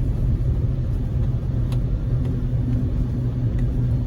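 Chevrolet Tahoe Z71 cruising on a snowy road, heard from inside the cabin: a steady low engine and road drone.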